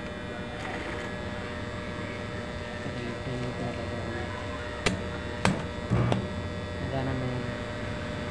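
Steady mains hum of a Powerhouse transformer-type arc welding machine, switched on and working again after repair. About five to six seconds in, three short sharp snaps as the electrode is struck to test the arc.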